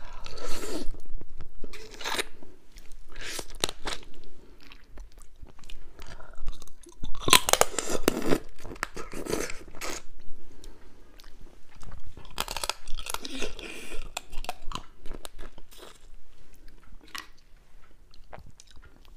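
Close-up crunching and chewing as spicy crab is bitten from the shell, close to a clip-on microphone. The bites come in irregular bursts, the loudest about seven to eight seconds in.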